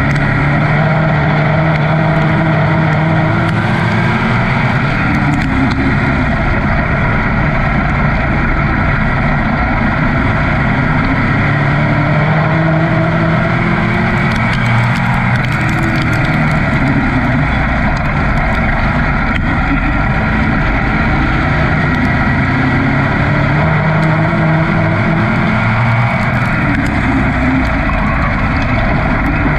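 Dirt-track race car engine heard from inside the cockpit, running hard and loud. Its pitch rises on the throttle and drops off again every few seconds as the car laps the oval.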